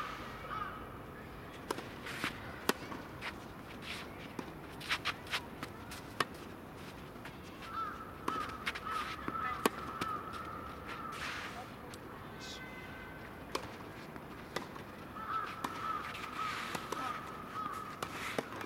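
Tennis rally: a series of sharp pops from rackets striking the ball and the ball bouncing on the court, a few of them loud and close. Twice a long wavering call sounds over the play.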